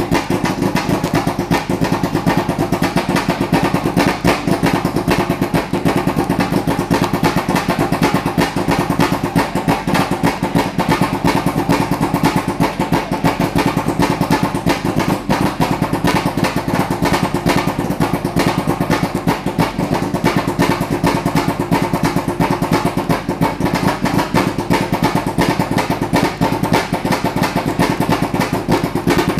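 Ford Focus TC2000 race car's two-litre four-cylinder engine idling steadily in the pits, with a fast, even pulse from the exhaust.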